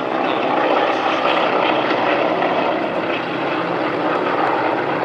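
Piston-engine propeller aircraft, T-6 Texan trainers flying in formation, passing with a steady, loud drone of radial engines and propellers.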